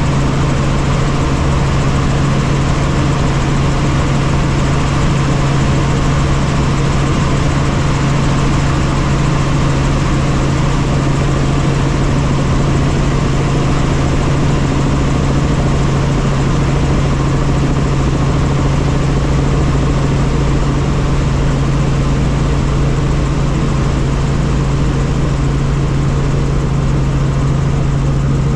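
Helicopter engine and rotors running steadily, heard from inside the cabin as a constant loud noise with a steady low drone.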